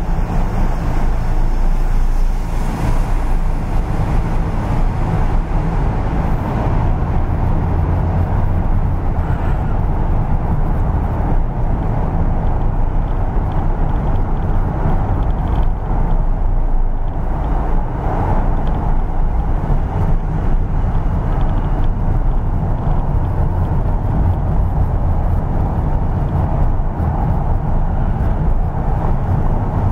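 Steady engine and tyre noise heard from inside a Honda Jazz's cabin as it drives slowly round a spiral car park ramp: an even, low rumble with no sharp events.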